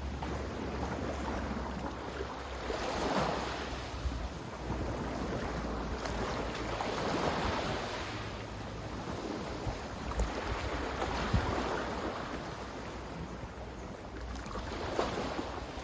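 Sea waves washing in and out, swelling four times about every four seconds, with a low wind rumble on the microphone.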